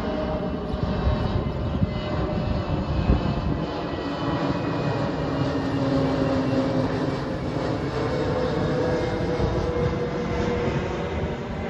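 Twin-engine jet airliner passing low overhead: a loud, steady engine roar with a whine whose pitch slowly falls as it goes by.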